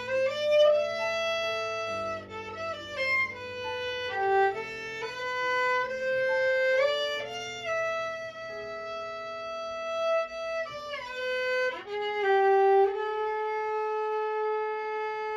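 Solo violin playing a slow melody, with a quieter low accompaniment under the first half, ending on a long held note.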